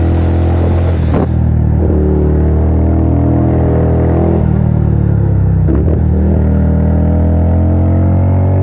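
Italika 250 V-twin motorcycle engine running steadily, its pitch rising and dipping slightly with small changes of throttle, with a couple of brief clicks.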